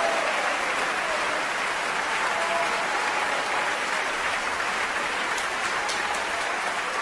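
A steady wash of rushing noise with a faint held tone beneath it, after the electronic music has died away.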